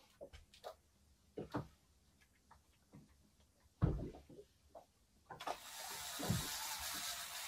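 Scattered light clicks and knocks of fishing tackle being handled on a boat, with one louder knock about four seconds in. From about five seconds on there is a steady hiss of wind and water.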